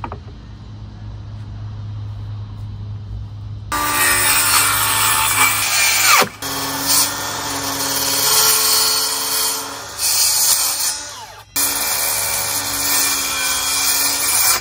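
Circular saw running and cutting through plywood in three stretches, starting a few seconds in and pausing briefly about halfway and again past two-thirds of the way through, as corner notches are cut in a plywood benchtop.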